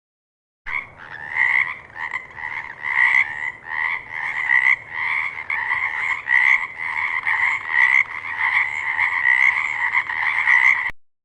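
Frog croaking in a steady, even series of calls, about three every two seconds. The calls start abruptly just under a second in and cut off suddenly near the end.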